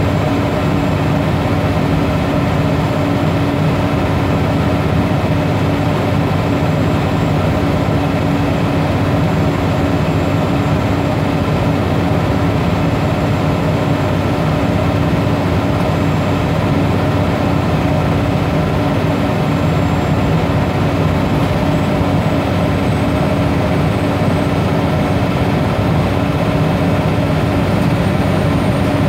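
Scania OmniCity double-decker bus engine running steadily under way, heard from inside the passenger saloon as an even drone over road noise, with a faint high whine that rises slightly near the end.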